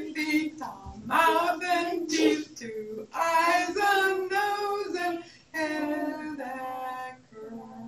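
A woman and a group of young children singing a fast action song that names body parts, in short phrases with brief breaks; the woman's voice leads.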